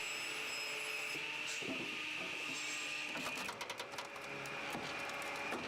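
Firewood processor running, a steady mechanical whine with a few short clicks and knocks about three and a half seconds in.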